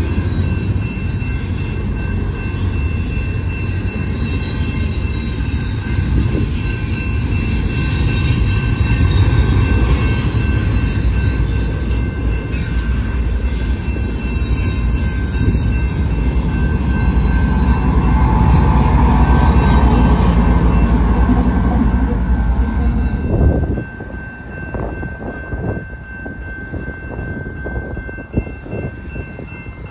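Canadian Pacific doublestack intermodal railcars rolling past close by, a steady heavy rumble and wheel clatter with some wheel squeal around two-thirds of the way in. Faint steady ringing from the level-crossing bell runs underneath. About 24 seconds in, the sound drops suddenly to a quieter, more distant train rumble.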